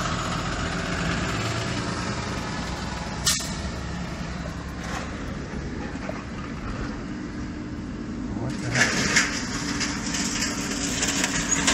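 Ford F-150 pickup heard from inside the cab, its engine running steadily as it rolls slowly across a dirt yard. A sharp click comes about three seconds in, and a louder hissing noise joins from about eight and a half seconds on.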